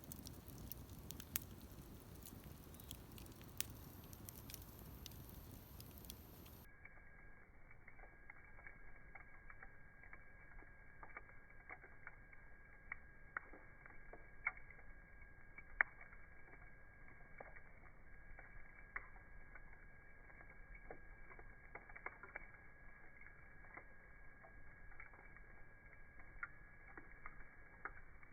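Wood fire crackling faintly, with irregular small pops and a few sharper, louder snaps.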